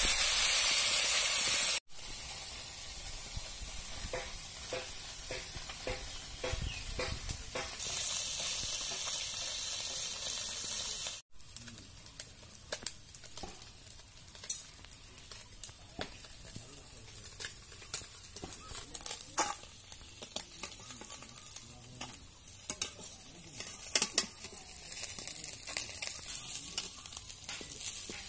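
Small river fish frying in an iron kadai, sizzling loudly at first, with a metal spatula scraping the pan as the fish are turned. The sound breaks off abruptly twice. After that the sizzle is quieter, with scattered clinks and scrapes of the spatula.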